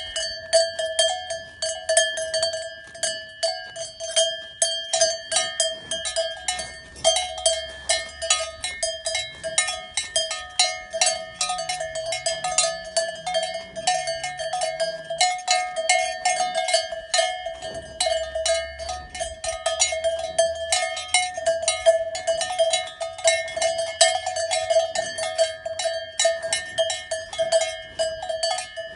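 Cowbells on the collars of grazing cows clanking irregularly, several strikes a second, over a steady ringing tone, swung as the cows move their heads while cropping grass.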